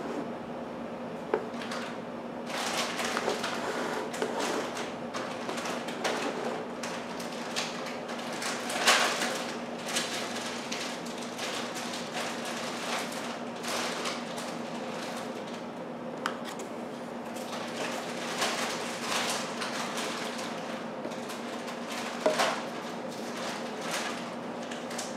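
A wall clock being handled: irregular rustling, rubbing and light knocks from hands moving it, the loudest about nine seconds in, over a steady low hum.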